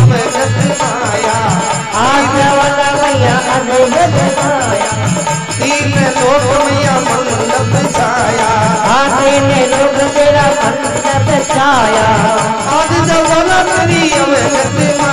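Live devotional bhajan music: harmonium melody over a steady dholak beat, with hand cymbals jingling in time.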